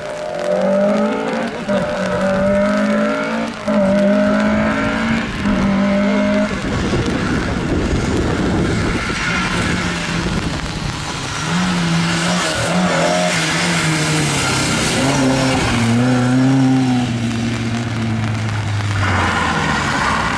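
Lada 2107 rally car's four-cylinder engine driven hard, its pitch climbing in steps through several upshifts, then a stretch of rushing noise from wet tarmac and spray. From about eleven seconds in the revs step down through downshifts under braking, and near the end comes a hiss of tyres sliding on loose gravel.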